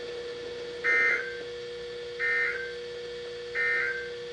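Three short bursts of SAME digital data tones, the end-of-message code that closes an Emergency Alert System broadcast. Each burst is a brief harsh buzz, about a second and a half apart, over a steady hum.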